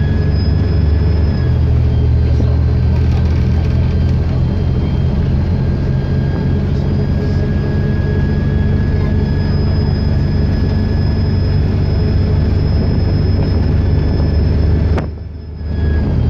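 Diesel bus engine running under way, with a steady high-pitched turbocharger whistle over the engine note. The sound briefly drops away about a second before the end.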